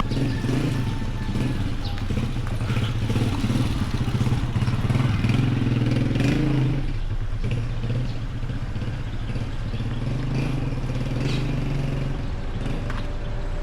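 A vehicle engine running steadily close by, its hum easing a little about seven seconds in and dying away near the end, with some clatter over it.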